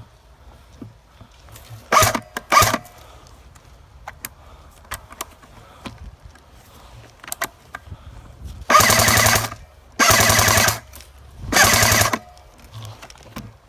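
Airsoft gun firing: two short bursts about two seconds in, then three longer full-auto bursts of rapid shots, each under a second, in quick succession near the end.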